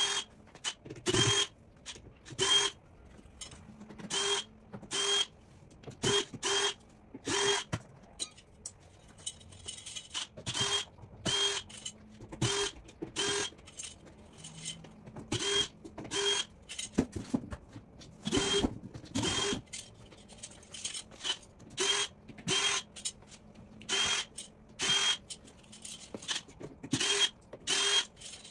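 Handheld power drill running in many short bursts, roughly one a second with a brief lull partway through, each burst a short steady whine. It is backing out the screws that hold the protective metal corner brackets on a plywood shipping crate.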